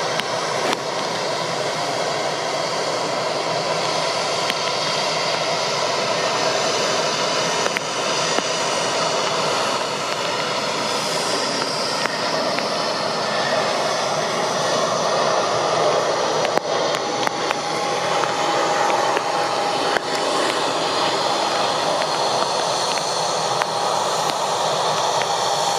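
Airbus A319 corporate jet's twin turbofan engines on final approach to landing: a steady jet rush with a faint high whine, a little louder in the second half, running on through touchdown.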